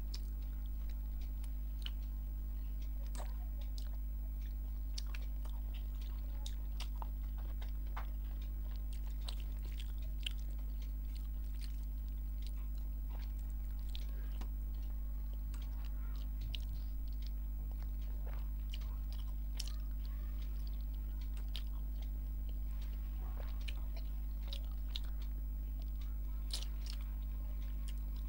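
A person chewing mutton curry and rice eaten by hand, with a scatter of short wet mouth clicks and smacks, over a steady low hum.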